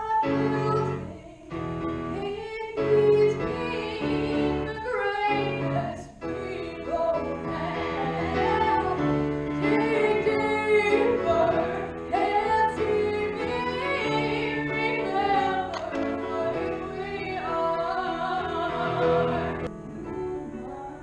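A singer with instrumental accompaniment, in a classical or operatic style, holding long notes with vibrato.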